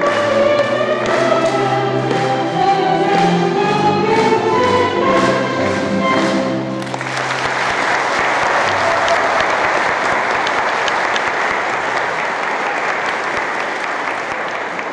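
A group of singers with instrumental accompaniment finishes a song about seven seconds in, and the audience breaks straight into applause that carries on.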